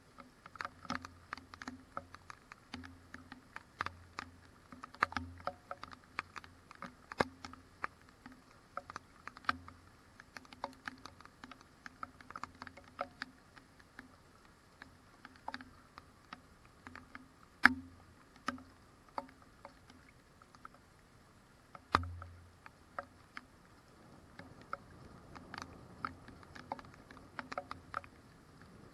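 Raindrops tapping irregularly on a surface close to the microphone, several small sharp taps a second with a dull knock under some of them. Two taps, about two-thirds of the way through and again a few seconds later, are much louder than the rest.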